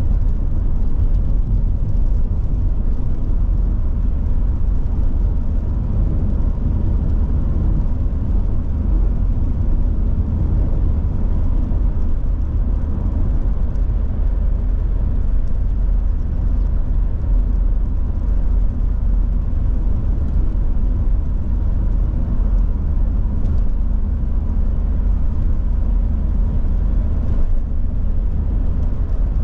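Volvo 740 GL driving at a steady cruise: a constant low rumble of engine and road noise with no changes in pace.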